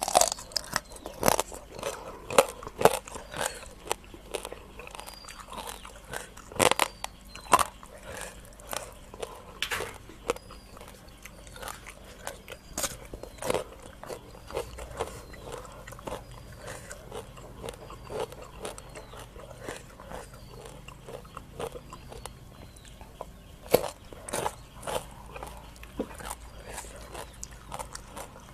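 Close-miked crunching and chewing of raw rice-field crabs and papaya salad: irregular sharp crunches of crab shell between the teeth with wetter chewing in between. Faint short high chirps repeat about once a second behind it.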